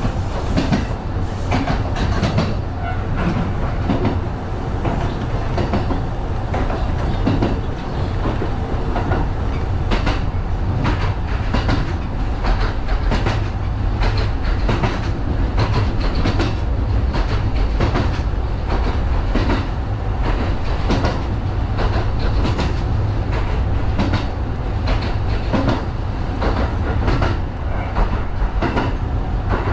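Kintetsu 1010-series electric train running along the track, heard from inside the train: a steady low rumble of wheels and running gear with frequent clacks of the wheels passing over rail joints.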